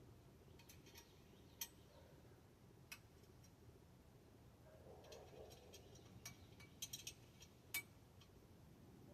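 Faint, scattered sharp clicks and light metallic taps from bicycle parts and tools being handled during assembly. A cluster comes about two-thirds of the way through, and the loudest tap comes near the end.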